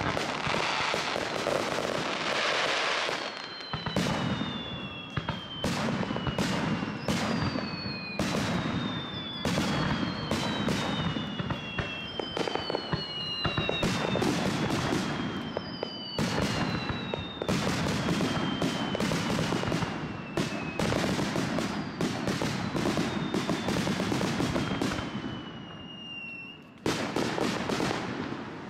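Aerial fireworks display: a dense, irregular run of shell bursts and crackling, with several long whistles gliding down in pitch over it. The bursts thin out and the level drops briefly near the end, then bursts start again.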